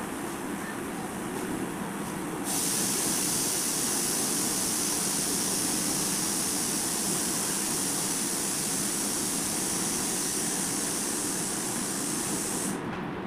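A steady high-pitched hiss starts abruptly about two and a half seconds in and cuts off suddenly near the end, over a steady background noise.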